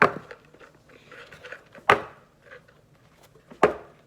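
Three sharp knocks, about two seconds apart, with faint small clicks between them.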